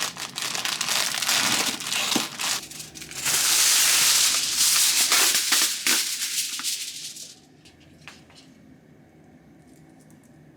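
Packaging crinkling and being crushed in the hands, close and crackly, for about seven seconds and loudest in the middle, then stopping.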